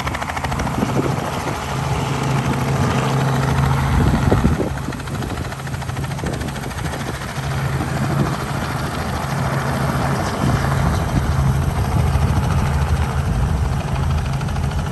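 Robinson R44 helicopter with its two-blade main rotor chopping steadily, its piston engine running under it. It swells briefly about four seconds in.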